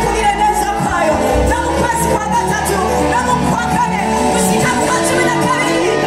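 Live band music played loud through the stage loudspeakers, with a woman's lead vocal and backing singers, recorded from among the audience.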